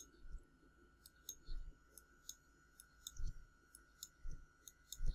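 Soft, irregularly spaced clicks of a computer mouse and keyboard, about a dozen, as text in web form fields is selected and deleted. A faint steady high whine runs underneath.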